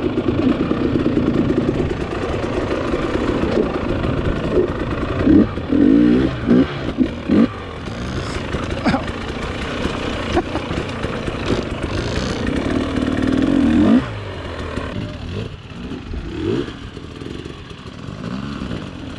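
Dirt bike engine running on the trail, revved in several short throttle blips around the middle. The engine note drops off sharply about fourteen seconds in and runs on more quietly.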